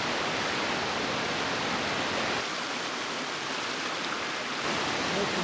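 Mountain stream rushing over a bare rock slab into a pool: a steady, even rush of water.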